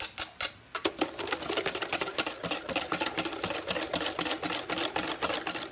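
Wire whisk beating fast against a stainless steel bowl, a quick steady run of metallic clicks and scrapes, as soft butter is whisked into thickened egg yolks for hollandaise sauce.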